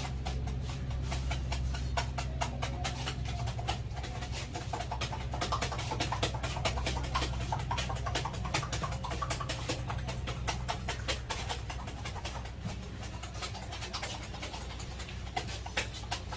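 Rapid hand taps and slaps of a barber's head massage, many light clicks a second over a steady low hum.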